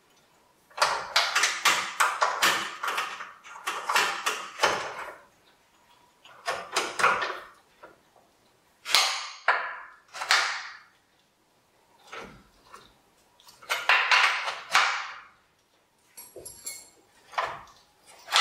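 Hand socket ratchet clicking in repeated short bursts, with pauses between, as a front suspension nut is worked loose.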